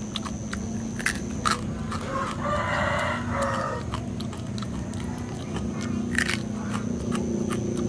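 A rooster crows once, about two seconds in, lasting roughly a second and a half. A few sharp clicks and a steady low hum run underneath.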